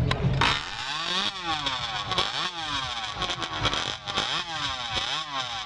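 Modified racing chainsaw engine revved in warm-up, its pitch sweeping up and down about once a second. It starts suddenly about half a second in.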